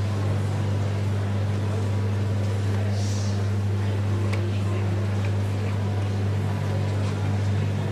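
A steady low hum, unchanging in pitch and level, with a few faint clicks over it.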